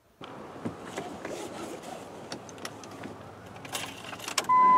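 Car cabin noise with small clicks and rustles, a few sharper clicks near the end, then a loud steady beep tone cutting in just before the end.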